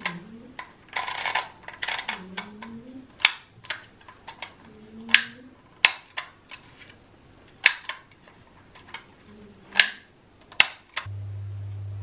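DYMO Junior embossing label maker in use: the letter dial is turned with a rattle of small clicks, then the handle is squeezed again and again to emboss letters into plastic tape, each squeeze ending in a sharp snap, about six in all.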